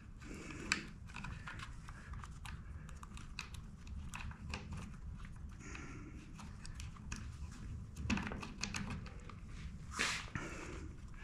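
Light clicks and rattling of small plastic parts as a Husqvarna 455 Rancher chainsaw's rear handle and throttle parts are fitted back together by hand, with a few sharper clicks.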